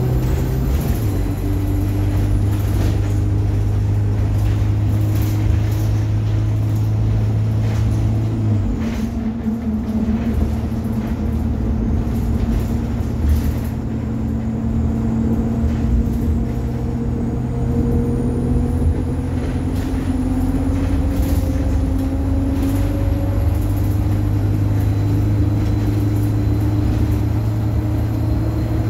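ADL Enviro 200 single-deck bus heard on board, its engine and drivetrain running under way. About nine seconds in the engine note changes, then its pitch climbs slowly and steadily as the bus gathers speed, with scattered rattles and knocks from the body.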